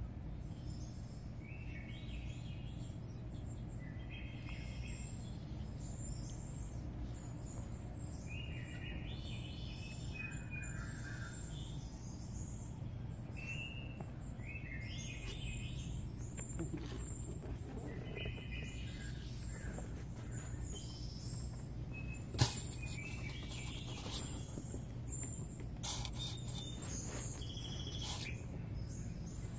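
Small birds chirping in short repeated phrases over a steady low hum, with one sharp click about two-thirds of the way through.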